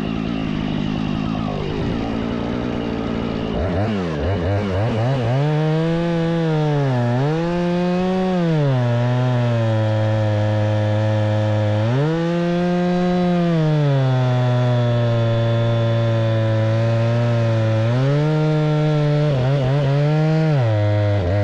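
Jonsered two-stroke chainsaw running at high throttle. Its engine note repeatedly climbs, then drops and holds lower for several seconds at a time, as the chain bogs in cutting, or noodling, cherry wood. For the first few seconds it runs at a lower, rougher speed before it is throttled up.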